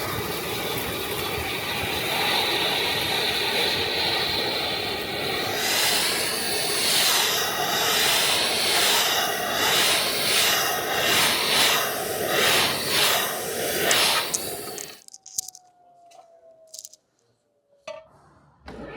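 ECOBULL TAN industrial vacuum's 480-volt three-phase side channel blower running with a steady hiss, the sound surging and wavering from about six seconds in as the pickup tool draws up dry foundry dust, slag and metal chips. About fifteen seconds in it drops out abruptly to near silence with a few faint clicks, and comes back loud just before the end.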